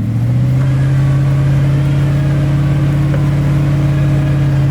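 Vehicle engine running at steady revs, a low even drone.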